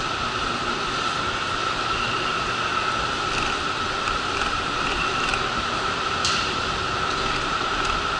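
Diesel railcar idling at the platform: a steady engine and equipment noise with a constant high whine.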